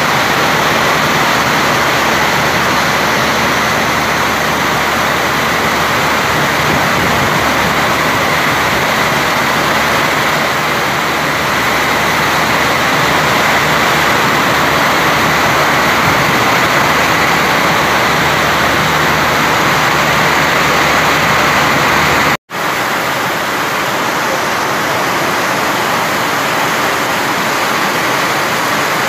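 Heavy monsoon downpour: dense, steady rain pouring onto trees, grass and a paved road. The sound cuts out for a split second about two-thirds of the way through, then the rain carries on.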